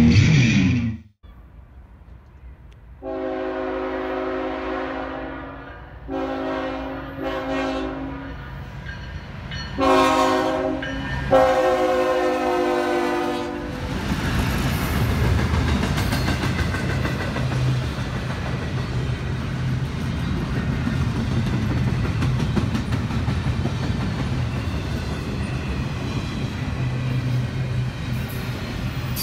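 Diesel freight locomotive's multi-chime air horn sounding a series of long and short blasts for a grade crossing, the last one held. The steady rumble and clickety-clack of the locomotives and double-stack intermodal well cars rolling past then follow.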